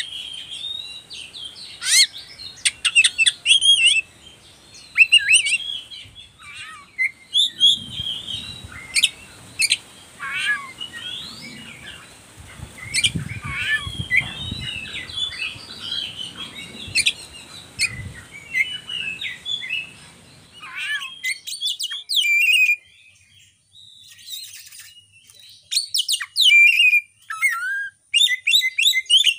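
Oriental magpie-robin singing: rapid bursts of varied whistled phrases, fast up-and-down glides and sharp clicking notes, broken by short pauses. A faint low rumble sits under the song in the middle part.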